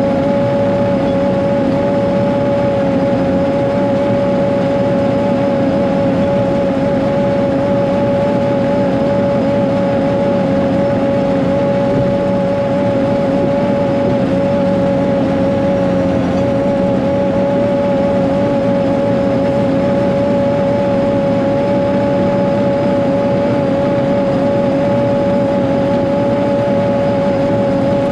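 Caterpillar 140G motor grader's diesel engine running steadily while it grades, with a strong steady whine over the engine note.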